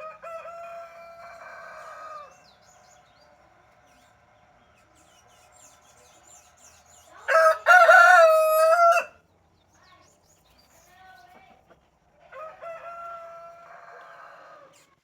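Brahma rooster crowing: one loud, long crow about seven seconds in, between two fainter crows at the start and near the end.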